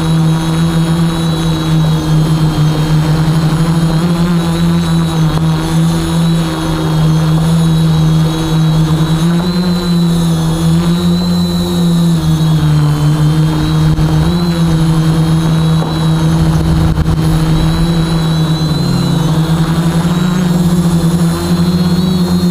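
Quadcopter's electric motors and propellers whirring steadily close to its own camera, the pitch wavering slightly as the drone holds and adjusts its flight.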